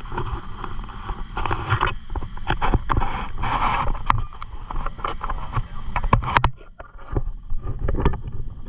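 Jet boat speeding along a river, heard from an open boat-mounted camera: low rumble and wind buffeting the microphone, with irregular knocks as the hull hits the water. A gush of spray hiss about three and a half seconds in.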